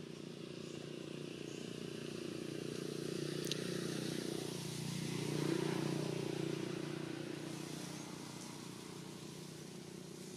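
A motor vehicle passing by: a low engine hum that swells to its loudest about halfway through and then fades away.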